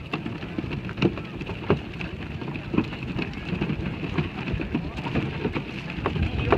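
Footsteps crunching on a gravel path at walking pace, a crackling rustle with a few sharper steps, over a steady outdoor background.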